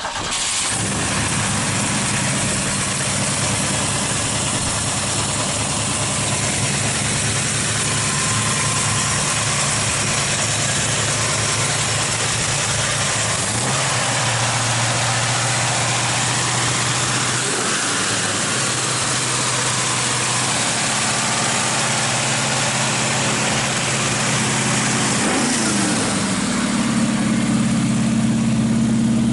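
A 1971 Ford Mustang's V8 idling steadily. It grows a little louder near the end.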